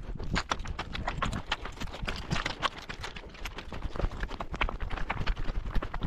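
Footsteps on loose rocky ground: shoes crunching and clacking on stones in quick, irregular steps, over a steady low rumble.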